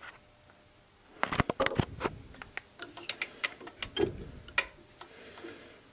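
Irregular sharp metallic clicks and taps of a socket wrench being fitted and worked on a bolt at the camshaft pulley, tightening it to torque. The clicks start about a second in and thin out near the end.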